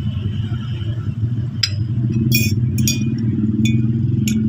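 Steady low rumble throughout. From about a second and a half in, a series of sharp glass clinks with a short high ring, like a spoon or glass knocking against drinking glasses.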